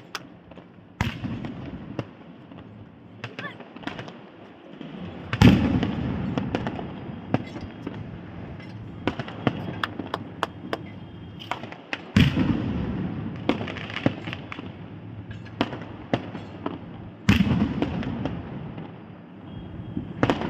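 Fireworks going off: four loud bangs, about 1, 5, 12 and 17 seconds in, each followed by a rumbling, crackling tail. Many smaller pops and crackles fall between them, and the bang about 5 seconds in is the loudest.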